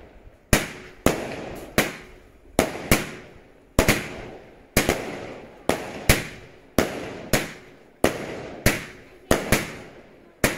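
A multi-shot firework firing shot after shot, about two sharp bangs a second, each followed by a fading crackle from the bursting stars.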